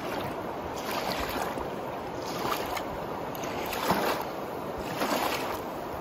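Small waves lapping onto a sandy riverbank, with the river rushing steadily behind. The wash swells about every second or so.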